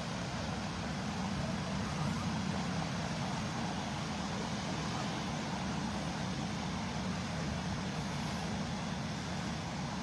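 Steady rushing noise of wind on the microphone and small waves washing over a shallow sandy beach, even throughout with no distinct events.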